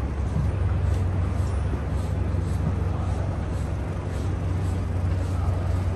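City street traffic: a steady low rumble of vehicle engines.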